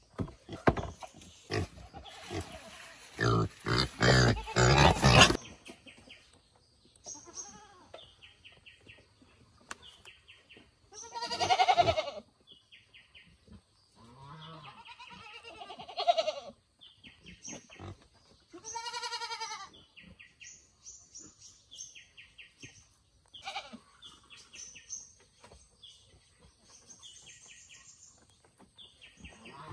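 Animal cries: a loud scuffling commotion for the first five seconds, then three drawn-out, pitched cries around the middle and a short one later. Small birds chirp in short repeated phrases throughout.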